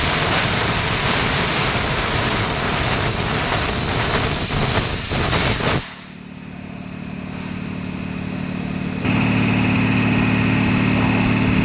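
Bodor 1.5 kW fiber laser cutting machine running flying cuts on 1.2 mm galvanized sheet: a loud steady hiss with a flutter of short pulses, which cuts off suddenly about six seconds in. A steady machine hum is left, growing and then stepping up louder about three seconds later.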